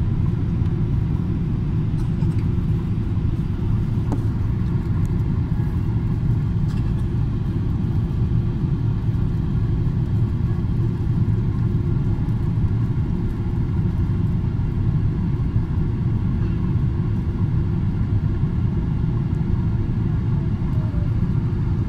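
Steady cabin noise inside a Boeing 777-300 airliner on approach: a constant low rumble of engines and airflow, with a faint steady whine above it.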